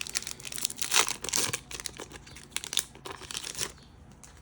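A foil Yu-Gi-Oh booster pack wrapper crinkling and being torn open, with a dense run of crackles that dies down near the end.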